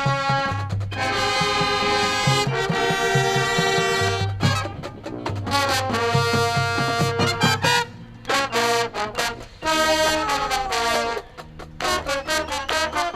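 High school marching band playing: the brass section holds loud chords over regular drum hits, breaking off briefly twice, once past the middle and once near the end.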